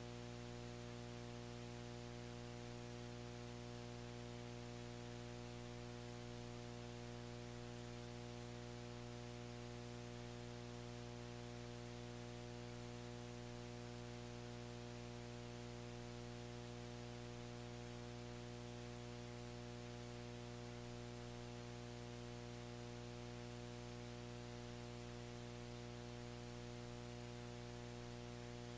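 A steady, unchanging hum made of several tones, lowest and strongest at a deep pitch, over a faint hiss.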